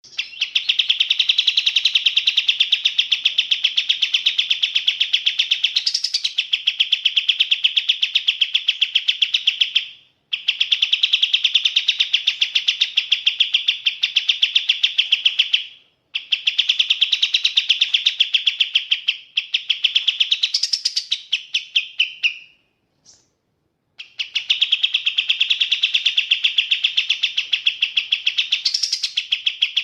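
Kapas tembak songbird singing long runs of rapid, high chattering notes without letup. The song breaks off briefly three times, the longest pause about two-thirds of the way in.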